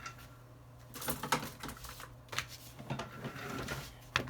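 Irregular light clicks and short scrapes of small tools and fragments of broken screen glass being cleared off an iPhone's frame, with one sharper click near the end.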